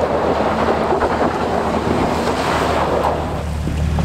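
Wind rushing on the microphone over a Jeep Wrangler JK's engine running, its tyres spinning in loose dirt.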